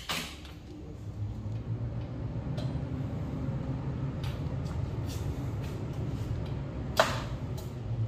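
Steel control panel: a push button clicks at the start, then about seven seconds in the door latch gives a sharp click and the door swings open, with a smaller click just after. A steady low hum from running ventilation fan machinery underlies it all.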